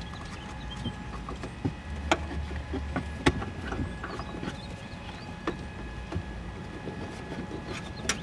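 Scattered small clicks and knocks of hands handling car wiring and plastic parts, over a steady low hum.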